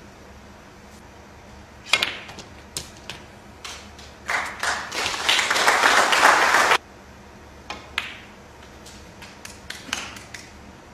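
Sharp clicks of snooker balls: the cue tip striking the cue ball and balls knocking together, with a few lighter clicks later. About four seconds in, a burst of audience applause lasts around two and a half seconds and cuts off abruptly.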